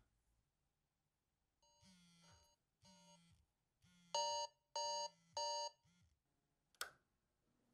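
Electronic alarm clock beeping in five pulses of a chiming tone, the first two quieter and the last three much louder. About a second after the last pulse there is a single sharp click.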